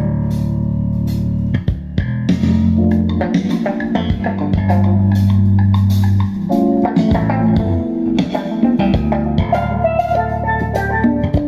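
Jazz sound-check track with bass, guitar and drums, played from a phone through an STK417-100 stereo power amplifier and wooden speaker cabinets. It plays clearly, with no hum.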